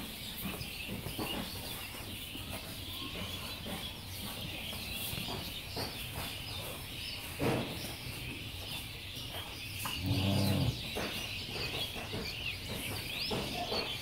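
Many small birds chirping steadily, with a single knock about seven and a half seconds in and a short, low cow call about ten seconds in, the loudest sound.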